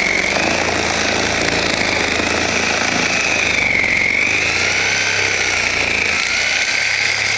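Electric power saw cutting a hole through roof shingles and sheathing. It runs continuously, with a motor whine that wavers up and down in pitch as it works under load.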